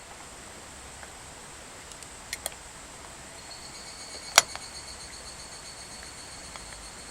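Insects trilling steadily in high, even tones, with three sharp clicks: two small ones a little past two seconds in and a louder one a little past four seconds.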